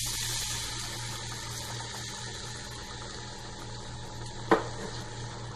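Water poured into a pan of hot fried masala, hissing and bubbling as it hits the hot oil, the hiss strongest in the first second and then easing. A single sharp knock about four and a half seconds in.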